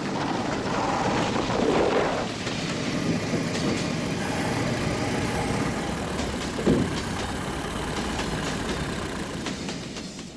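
Steady rumbling vehicle noise that swells in the first two seconds, with a single sharp knock a little past the middle.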